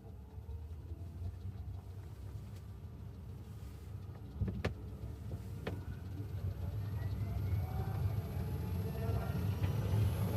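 Fiat Topolino running with a low rumble that grows louder and a faint rising whine, as if speeding up, with two sharp knocks about halfway through. The car has a strange rattle that the owner cannot place.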